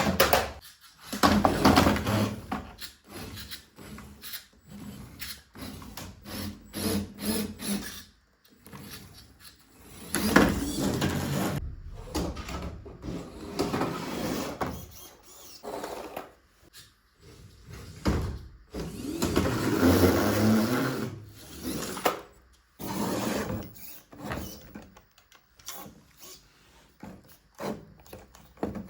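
Small electric motors and plastic gearboxes of toy RC cars whirring in bursts, starting and stopping over and over, with plastic knocks from the cars on the obstacle.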